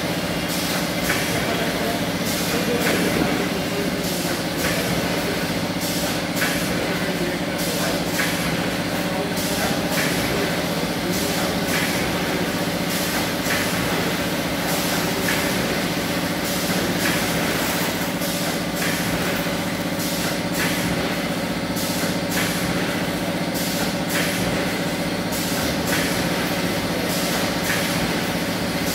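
Automatic namkeen pouch packing machine running: a steady motor hum with a regular, rapid clicking from its packing cycle.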